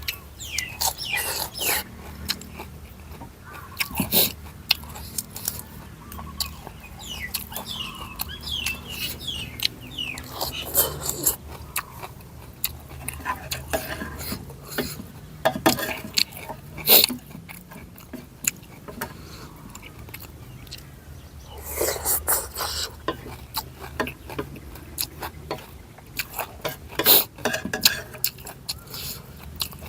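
Close-miked chewing of a noodle-soup meal, with irregular wet clicks and crunches and louder clusters of bites now and then. Birds chirp in the background, most clearly near the start and again around a quarter of the way in.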